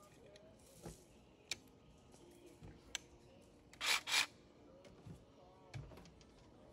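Cordless jigsaw being handled: scattered clicks and knocks, and two short bursts of buzzing noise close together about four seconds in, the loudest sounds, as the saw is briefly run.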